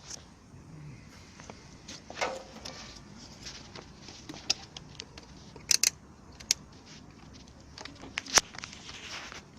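Scattered short clicks and taps from solar panel cables and their plastic connectors being handled, with quiet stretches between them.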